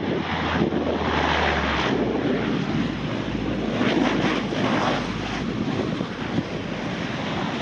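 De Havilland Canada Dash 8-300's twin turboprop engines running as the airliner rolls out along the runway after landing, with a low drone that drops in pitch about two seconds in. Heavy wind noise on the microphone.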